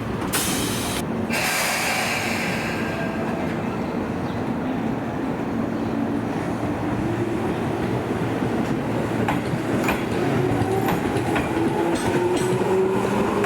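Tobu Tojo Line electric commuter train. It opens with a short burst of high hiss, then the motor's whine rises steadily in pitch as the train accelerates. Wheels click over rail joints and the sound grows louder toward the end.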